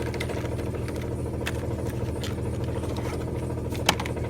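Hyundai engine idling with a rapid, steady knock from inside the motor, a knock that Lucas oil stabilizer has not cured. A few sharp clicks sound over it, the loudest near the end.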